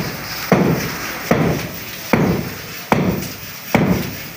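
Masons hammering on the floor above: a steady series of heavy hammer blows, five evenly spaced strikes about one every 0.8 seconds, each with a short ringing decay.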